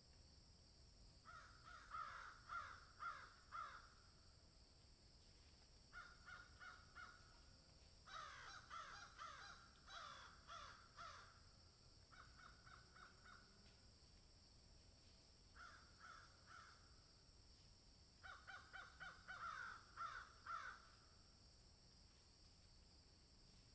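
Corvids calling: harsh, rapidly repeated calls in about six separate bursts a few seconds apart, faint overall.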